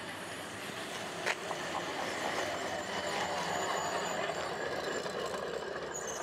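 Articulated tram passing close by on its track. Its running noise grows louder as it approaches and holds as the car goes past, with a single sharp click about a second in.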